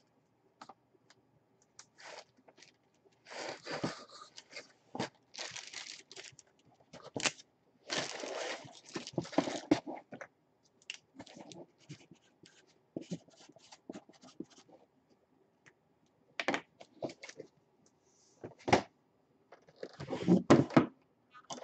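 Packaging being handled: a plastic-bagged jersey and cardboard box rustling, crinkling and tearing in irregular bursts, with a few sharp knocks and clicks from the box.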